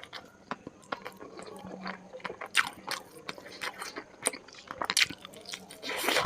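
Close-miked mouth sounds of eating spicy chicken curry with rice: chewing and biting, with irregular sharp wet clicks and snaps. The loudest come about two and a half seconds in and near five seconds.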